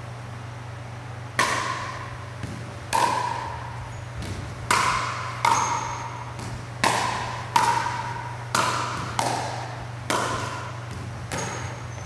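A pickleball rally: paddles hit the ball with sharp pops, about ten hits a second or so apart, each echoing briefly, with fainter ball bounces between them.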